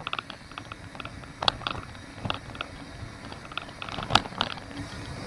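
Bicycle rattling and clicking as it rolls over rough, broken concrete, picked up through the handlebar-mounted camera, with two louder knocks from bumps about a second and a half in and near four seconds in.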